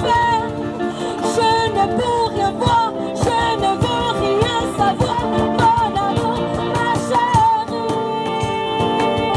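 Live acoustic band music: strummed acoustic guitars and a cajon keeping a steady beat, with a woman singing a bending melody over them.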